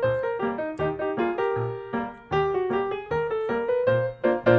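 Background music: a light piano or electric-piano melody of short, plucked notes.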